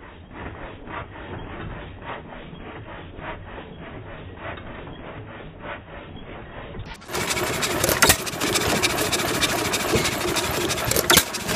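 Antique John Deere single-cylinder stationary engine running with a steady, even beat while driving a water pump by a flat belt. About seven seconds in it becomes markedly louder.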